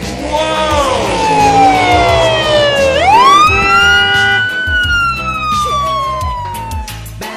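Police car siren wailing: its pitch slides slowly down, sweeps quickly up about three seconds in, then glides down again before it breaks off near the end. Background music with a beat runs underneath.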